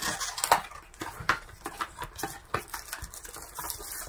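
Unboxing: a cardboard box and its packaging handled as a portable blender is lifted out, giving an irregular run of light knocks, clicks and scrapes.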